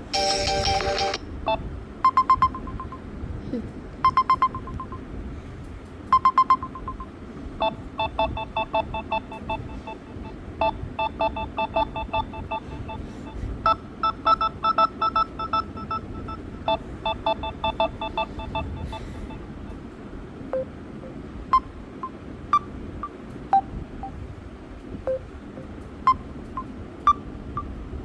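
Samsung Galaxy A03 stock ringtone playing through the phone's loudspeaker. It is made of short electronic beeps: single beeps about two seconds apart, then fast rippling runs of beeps in several pitches for about ten seconds, then scattered single blips.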